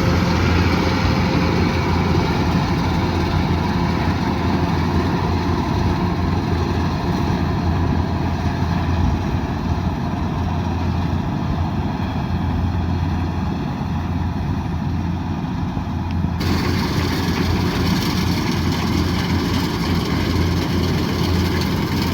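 Kubota DC108X combine harvester's diesel engine running steadily with a deep hum. About sixteen seconds in, the sound abruptly turns brighter.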